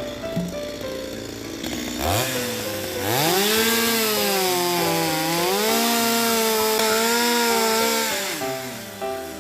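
Two-stroke chainsaw revved up sharply about two seconds in, then held at high speed with its pitch sagging and recovering as it bites into a log, before dropping back to idle near the end.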